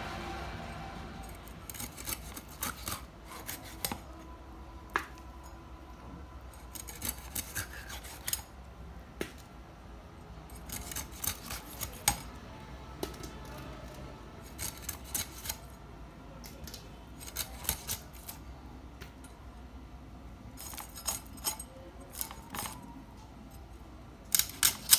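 Hilsa fish being scraped and cut against the curved steel blade of a boti: short bursts of sharp scraping clicks every few seconds.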